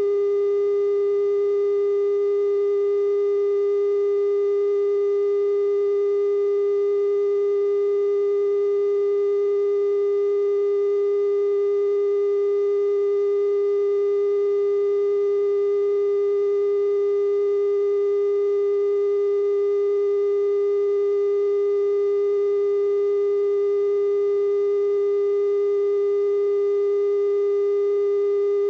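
Steady, unbroken 420 Hz television test tone, the 'bars and tone' signal a TV station transmits after signing off the air.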